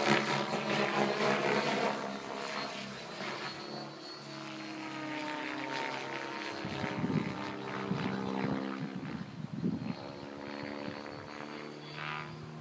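Electric 700-size Synergy E7SE RC helicopter in 3D flight: its rotor blades and motor hum with a pitch that drifts up and down as it manoeuvres, louder in the first two seconds and softer after.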